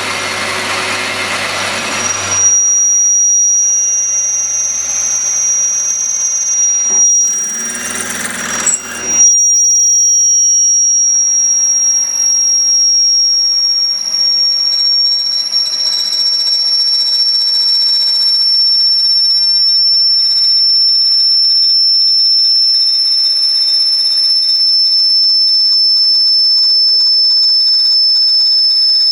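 Benchtop lathe machining a bicycle head tube, with a loud, steady, high-pitched squeal from the cut that sinks very slightly in pitch. In the first few seconds it is broken by two short stretches of louder rushing noise that cut in and out abruptly.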